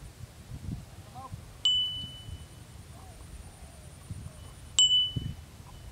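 A small bell or chime struck twice, about three seconds apart, each a sharp clear ping that rings out for under a second. Low wind rumble on the microphone underneath.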